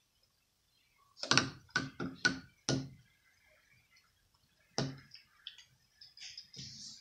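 Safety razor rapped against the rim of a rinse bowl: four quick knocks a little over a second in, one more near five seconds, then light splashing of water as the razor is rinsed.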